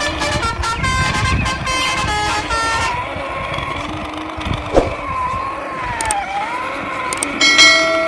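Truck horn sounds: a quick run of short honks in the first three seconds, then a louder, longer toot near the end.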